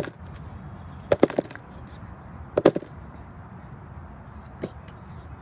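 A handful of sharp knocks as a rock is handled against wooden decking: one at the start, a quick group about a second in, a louder pair just past two and a half seconds in, and a faint one near the end.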